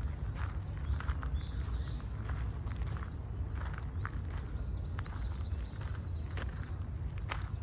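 Footsteps on a trail, about one or two a second, with small birds chirping and trilling high overhead and a steady low rumble underneath.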